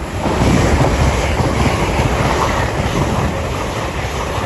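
LNER Azuma high-speed train passing through the station non-stop at speed: a loud, steady rush of wheel and air noise that starts suddenly, with the wheels clattering on the track.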